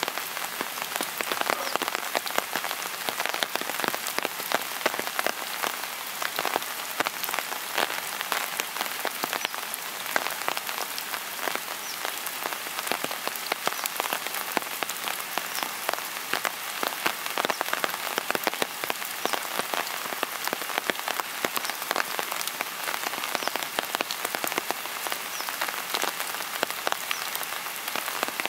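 Steady rain falling, a dense patter of drops striking nearby surfaces.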